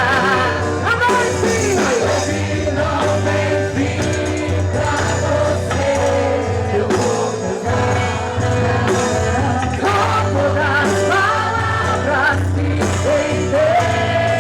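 Loud quadrilha junina song with a lead singer over a steady, continuous band accompaniment.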